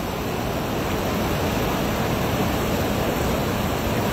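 Steady rushing outdoor noise with no distinct events, heaviest in the low end.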